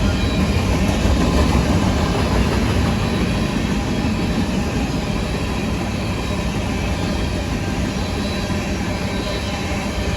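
CSX grain train's freight cars rolling past, a steady rumble of wheels on rail, slightly louder in the first few seconds.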